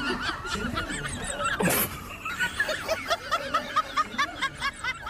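High-pitched laughter in a rapid string of short giggling bursts, about four or five a second in its second half, over background music.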